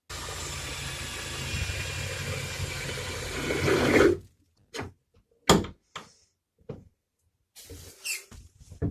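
Electric drill running for about four seconds and boring through the steel of a bus door latch, its note loading down near the end before it stops suddenly. A few sharp knocks follow.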